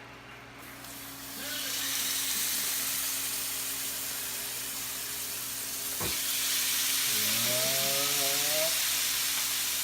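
Food frying in a pan, a steady sizzle that swells about a second in and again with a click about six seconds in.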